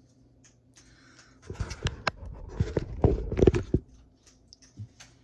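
Close-up handling noise around a slow cooker: a quick flurry of knocks, clunks and scrapes lasting about two seconds, starting about a second and a half in, with one small knock near the end.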